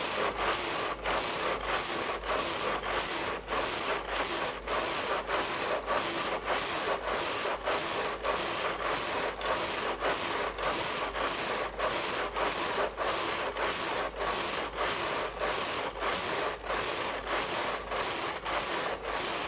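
Brother KH-950i electronic knitting machine carriage being pushed back and forth across the metal needle bed, knitting two-colour patterned rows: a continuous rasping rattle broken by regular brief gaps.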